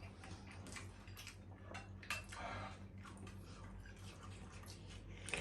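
Faint eating noises at the table: scattered small clicks and light clatter of utensils on dishes, over a low steady hum.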